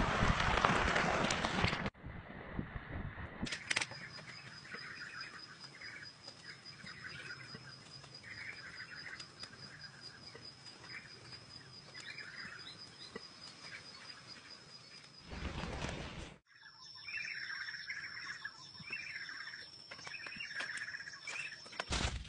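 Loud rushing wind noise for about the first two seconds. Then small birds chirping in short calls over a steady, high-pitched pulsing trill, broken once by a brief burst of noise a little past the middle.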